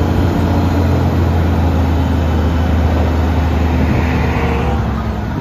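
Diesel engine of an eight-wheel tipper truck running steadily while its hydraulic ram raises the tipper body.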